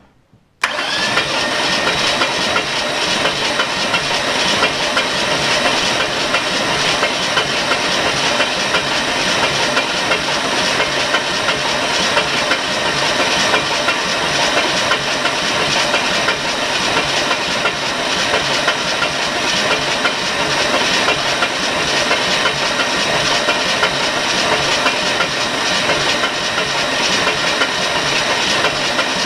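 Truck engine cranked over steadily on its starter without firing, to prime the oil system and build oil pressure. It starts abruptly, under a second in, with a short rising whine, and then holds an even pitch.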